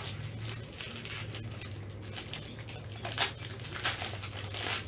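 Plastic card-pack wrapping crinkling and crackling in gloved hands as the pack is opened, with a few sharper crackles about three and four seconds in, over a low steady hum.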